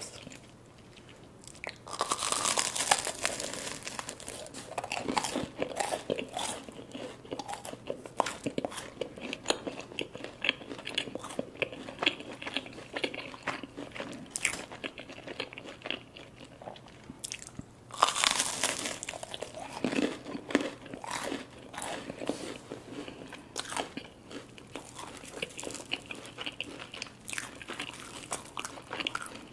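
Crunchy sugar-coated churro bitten and chewed close to the microphone: a loud crisp bite about two seconds in and another about eighteen seconds in, each followed by a long stretch of crunchy chewing.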